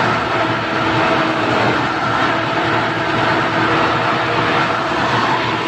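A 10-ton truck-mounted lorry crane running, its truck engine driving the crane's hydraulic system, in a steady, dense mechanical drone with a faint steady whine running through it.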